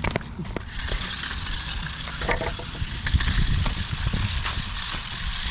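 Toy remote-control cars racing over rough ground: a steady crackling hiss with scattered clicks and knocks.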